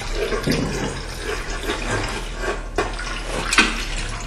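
Braised cuttlefish's hot cooking liquid being tipped out and poured through a strainer, a steady splashing and trickling, with a few knocks about half a second in, near the three-second mark and just after.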